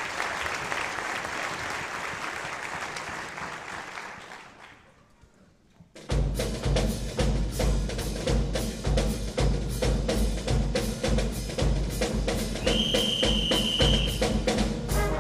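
Audience applause dying away, then after a short hush a concert band starts a New Orleans-style number about six seconds in, led by a steady drum-kit beat of bass drum and snare.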